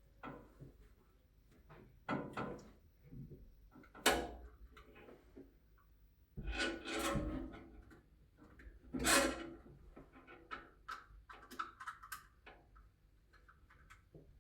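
Hand-work noises: scattered knocks, clicks and scraping of tools and parts being handled, with a run of small quick clicks near the end.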